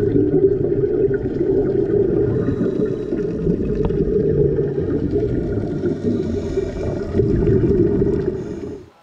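Muffled underwater rumble and water noise, a steady low wash with nothing above a dull roar, picked up underwater over a reef. It cuts off suddenly just before the end.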